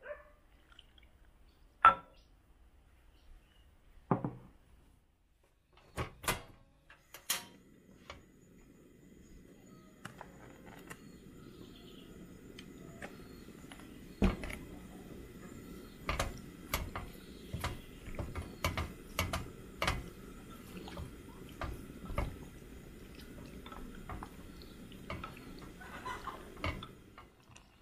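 Chopsticks knocking and scraping against a clay pot as chopped pork is stirred, many light knocks in the second half. Underneath runs a steady low rush from a portable butane stove's burner, which comes on about a quarter of the way in after a few sharp clicks.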